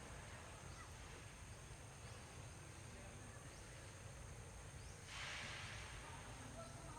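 Quiet outdoor ambience with a steady low rumble and a brief rustling hiss about five seconds in.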